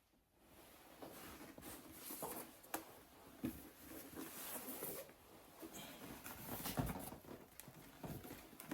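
Toy shields being handled: faint irregular rustling and scraping with a few sharp light knocks, the loudest a thump about seven seconds in.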